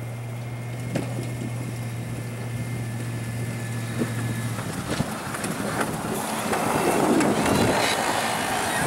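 Pickup truck with a front snowplow blade driving up and pushing snow, its engine and the blade's scrape of snow building to a peak near the end. A steady low hum runs underneath until about halfway.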